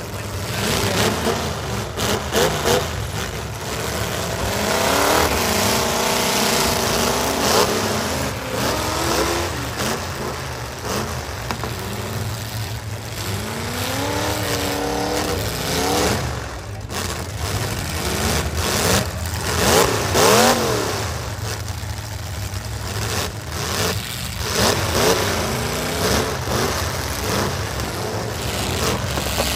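Several full-size V8 demolition derby trucks' engines revving hard, rising and falling in pitch over and over, with occasional sharp knocks from trucks slamming into one another.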